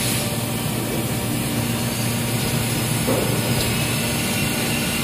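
Steady drone of running factory machinery: a low hum under an even wash of noise.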